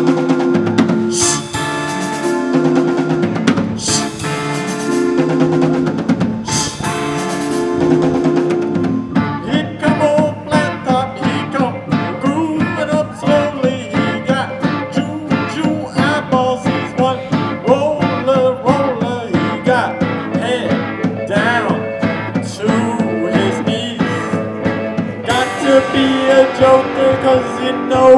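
Live band playing electric and acoustic guitars over a drum kit, with a male singer. Big chord hits with cymbal crashes for the first eight seconds or so, then a steady drumbeat with singing over it.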